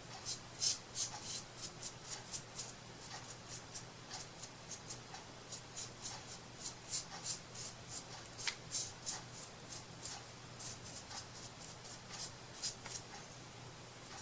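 Rapid scratching strokes by hand on a surface, a few a second and uneven, with a faint steady hum underneath.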